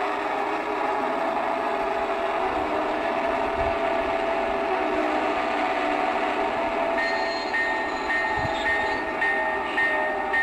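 Model diesel locomotive's onboard sound system playing a running diesel engine through a small speaker. About seven seconds in, a steady ringing beat starts, repeating two to three times a second, like a locomotive bell.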